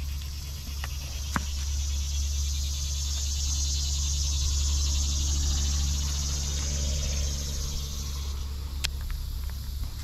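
Insects buzzing in a high, even drone that swells in the middle and fades again near the end, over a steady low rumble, with a few light clicks.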